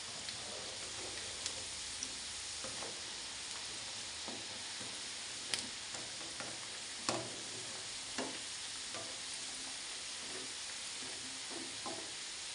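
Potato pakoras deep-frying in hot oil, a steady sizzle, with sharp clicks and taps now and then as a wire-mesh skimmer turns them in the pan.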